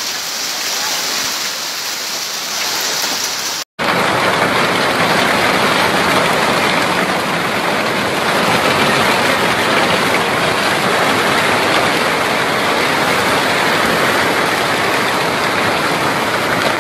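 Hail and heavy rain falling hard in a hailstorm: a loud, dense, steady hiss and patter. It cuts out for an instant about four seconds in, then comes back a little louder.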